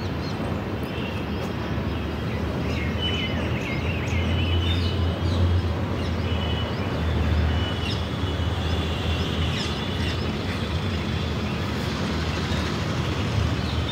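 Birds chirping over a steady low rumble that swells twice in the middle.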